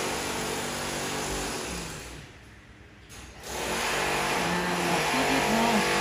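A motor vehicle's engine running with a steady hum. It fades away about two seconds in and comes back up a second or so later.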